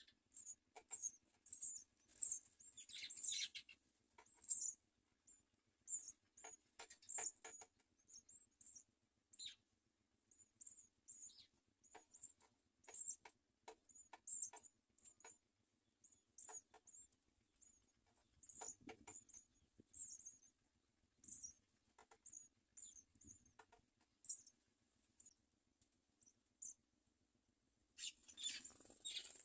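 House sparrow nestlings cheeping: many short, thin, very high-pitched squeaks scattered throughout, mixed with soft rustling and taps in the nest, and a denser flurry of cheeps and rustling near the end.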